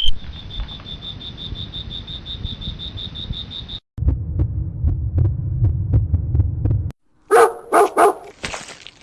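A string of spliced sound clips: a rapid high-pitched beeping tone for about four seconds, cut off suddenly, then a low rumble with faint ticks for about three seconds, then a dog barking three times near the end.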